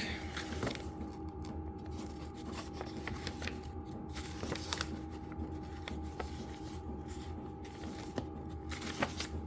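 Scattered light clicks and rustles of packaging and paper being handled, over a steady low hum from a diesel heater running.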